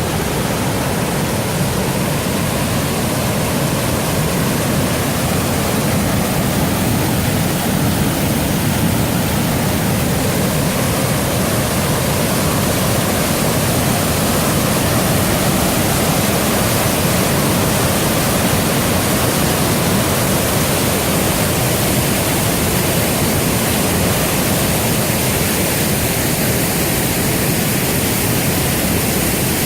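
Millstone River rushing: a loud, steady wash of flowing water with no breaks.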